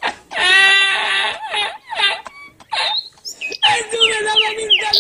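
A man's uncontrollable, high-pitched wheezing laughter in several long bursts, with squeaky falling squeals near the end: the 'Spanish laughing guy' meme laugh.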